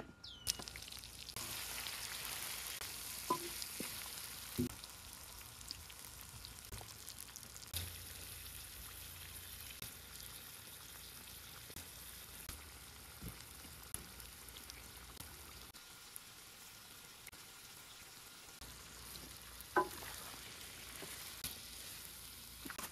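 Duck pieces sizzling as they fry in a stainless-steel pan: a steady hiss that starts about a second and a half in. Metal tongs click against the pan a few times.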